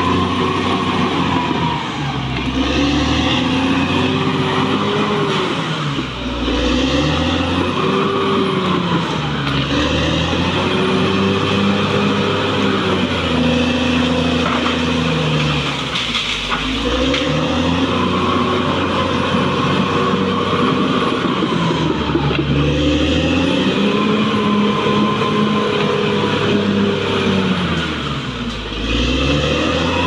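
Caterpillar D6R XL crawler bulldozer's diesel engine running hard while it pushes earth. Its pitch rises and falls in long swells every few seconds, with brief sags, as the load on it changes.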